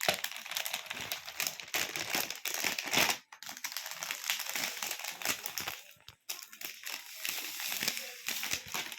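Dense crinkling and crackling from something being handled, continuous apart from short breaks about three and six seconds in.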